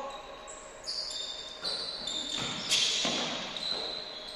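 Basketball sneakers squeaking on a hardwood gym floor in a series of short, high-pitched chirps, with a few thuds of a basketball bouncing a little after the middle.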